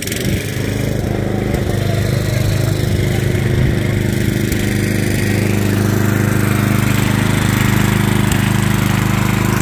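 Small single-cylinder engine of a racing ride-on lawn mower, close by, coming up to speed in the first second and then running steadily.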